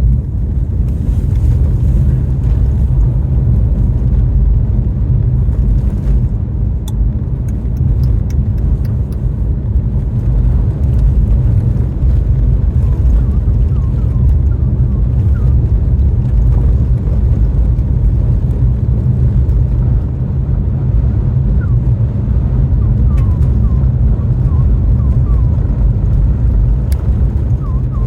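A car driving: a steady low rumble of engine and road noise, with a few light clicks about a quarter of the way in and faint short squeaks in the second half.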